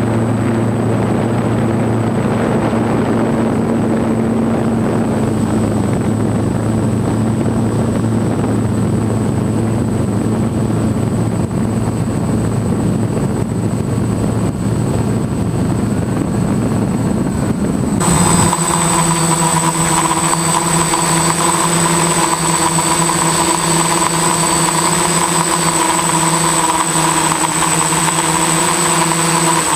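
F550 hexacopter drone's electric motors and propellers running steadily in flight. About two-thirds of the way in, the sound changes abruptly to a steadier whine made of several held tones.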